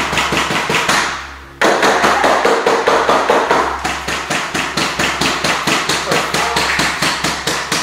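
Backing music built on a fast, even percussive beat of about five hits a second over a steady bass. The beat thins and fades briefly, then drops back in loud about a second and a half in.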